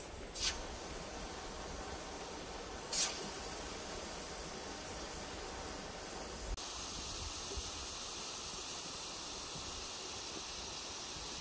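Steady sizzle of bolani flatbread frying in hot oil, with two short, louder crackles in the first few seconds.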